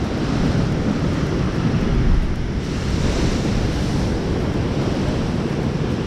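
Sea surf washing against a rocky shore, with wind buffeting the microphone; the wash swells a little about two seconds in.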